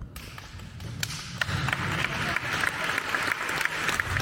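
Audience applause starting up and building, individual claps thickening into steady clapping from about a second in.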